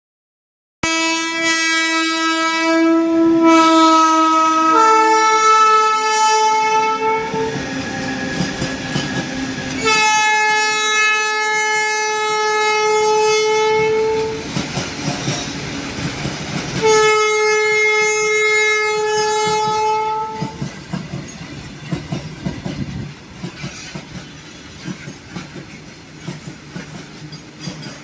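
Indian Railways WAG12 electric freight locomotive sounding its horn in long blasts: a run of held notes that change pitch over the first seven seconds, then two more long blasts at about ten and seventeen seconds. After the horn stops, the loaded freight wagons rattle and clack over the rail joints as they pass, more quietly.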